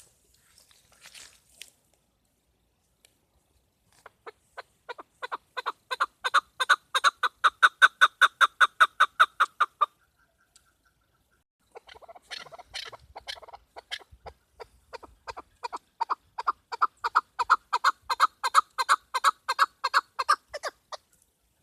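Chukar partridge calling, a female's call: two long runs of rapid clucking notes, about five a second, each run building in loudness and then stopping, with a short pause between them.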